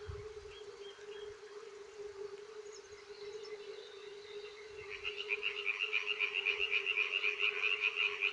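Frogs calling: a steady low chorus throughout, and from about five seconds in a nearer frog calling loudly in a fast series of croaks, about five a second.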